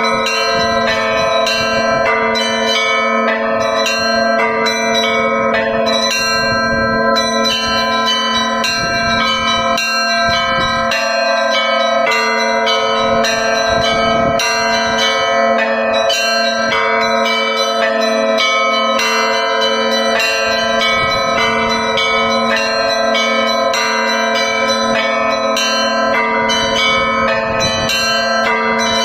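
Russian Orthodox church bells ringing continuously: a rapid, busy pattern of small bells struck over the steady hum of larger, lower bells.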